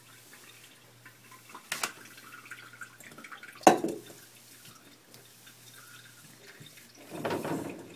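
Small knocks and rubbing from a cloth being wiped over a kitchen counter: a sharp click near two seconds in, a loud knock about three and a half seconds in, and a short rustling scrub near the end, over a low steady hum.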